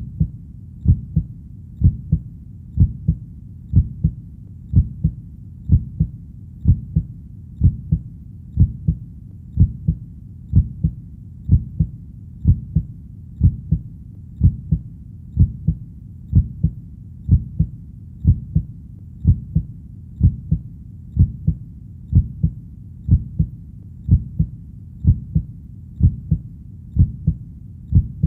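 Heartbeat sound: steady low double thumps (lub-dub) at a slow resting pace of about one beat a second, very even, over a faint low background hum.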